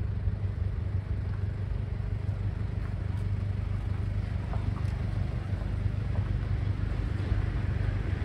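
Diesel engine of a large decorated truck (dekotora) running at low speed as it creeps toward the listener: a steady low rumble.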